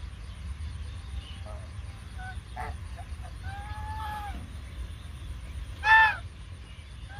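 Domestic geese calling: a few soft short calls, a drawn-out call about halfway through, and one loud honk near the end.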